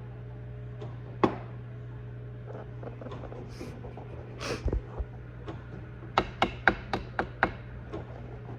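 A steady low hum, with scattered light clicks and a quick run of sharp clicks and knocks near the end.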